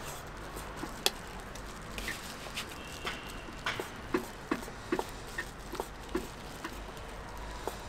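Light clicks and knocks, irregularly spaced at about one to three a second, over a faint steady low hum.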